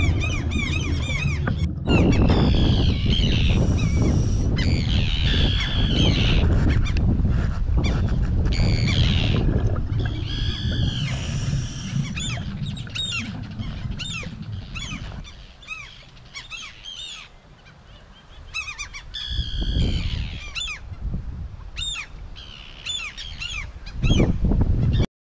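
Underwater sound on a scuba dive: a low bubbling rumble of water with many short, high chirping squeaks, quieter for a few seconds in the middle, and cutting off suddenly near the end.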